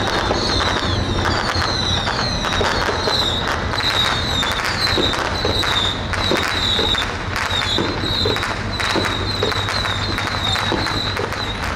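Firecrackers going off in a dense, irregular string of sharp cracks, with short high whistling chirps repeating about twice a second. Under them runs the low, steady drone of a boat engine.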